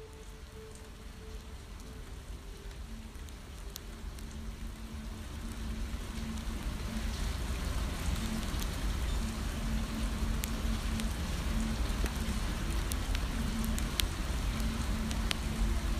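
Steady rain with scattered drops ticking sharply. It fades in and grows louder over the first half, then holds steady.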